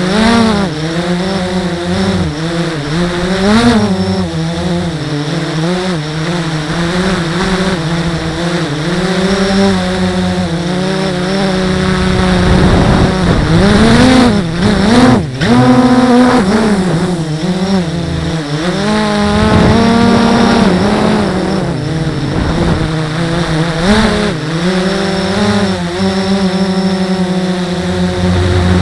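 Blade 350 QX quadcopter's four brushless motors and propellers whining, heard from the camera mounted on the drone. The pitch keeps rising and falling with the throttle, swooping sharply about halfway through.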